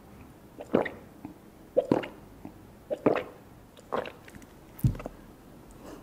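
Close-miked gulping swallows while drinking from a mug, about one gulp a second, five in all, the last one a duller, lower thud.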